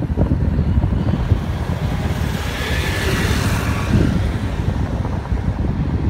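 Wind buffeting the microphone over the low rumble of a moving vehicle on a road. A hiss swells and fades around the middle.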